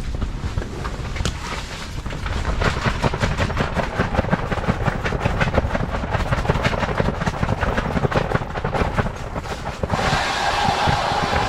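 Wind buffeting the microphone, joined about two and a half seconds in by a rapid, continuous rattling clatter.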